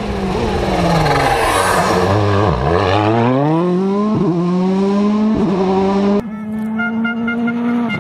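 Rally car engine at full stage pace: the revs drop as it slows, then climb through the gears with two quick upshifts. About six seconds in the sound cuts sharply to another rally car's engine held at steady high revs.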